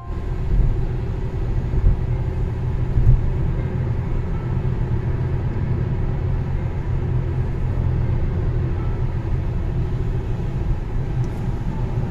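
Steady low rumble of a car on the move, a continuous road and engine drone with no distinct events.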